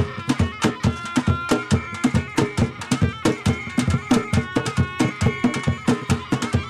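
Traditional Zanzibari ngoma music: drums beating a fast, busy rhythm, with a high melody of held notes over them.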